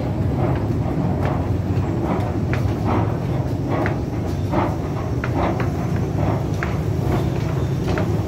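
Station escalator carrying a crowd: a steady low rumble of the running escalator and station, with scattered short clicks and footsteps from people on the steps.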